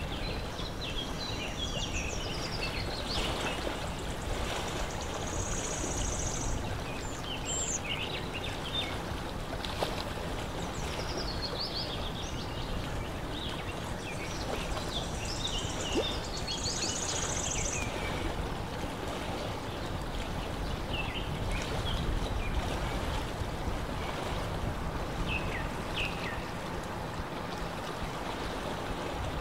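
Lakeshore ambience: a steady wash of lapping water and wind, with small birds chirping and twittering at intervals, including two short buzzy high calls about six and seventeen seconds in.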